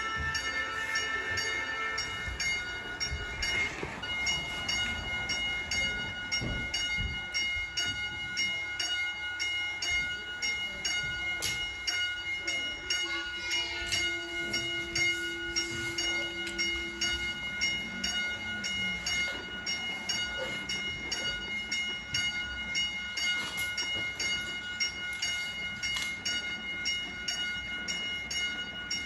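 Electronic sound effects from a battery-powered toy railroad crossing: a steady train-like sound with held tones and a signal repeating about twice a second. Several knocks from the toys being handled.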